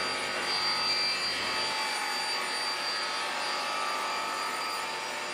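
CNC cutting machine with a circular saw blade running, a steady hiss with a few faint high tones that come and go.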